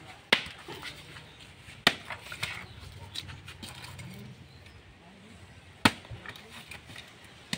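Machete blade striking the hard shell of a mature coconut to split it for copra: four sharp cracks at uneven intervals, with a few lighter taps between.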